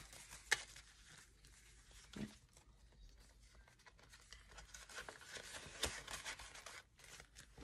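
Faint rustling of paper cash and envelopes being handled, with a few sharp clicks, the loudest about half a second in and another near six seconds.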